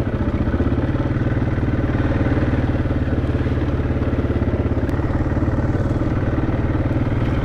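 ATV (quad) engine running steadily with an even pulsing note while the machine drives over rough pasture.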